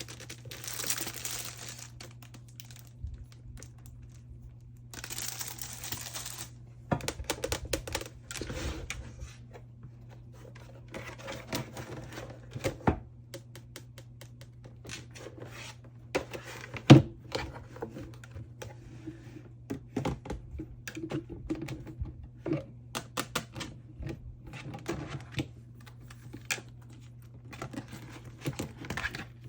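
Photocards being slid out of plastic sleeves: plastic swishing and crinkling, with many light taps and clicks of cards and sleeves being handled. There is one sharper click about halfway through, and a steady low hum runs underneath.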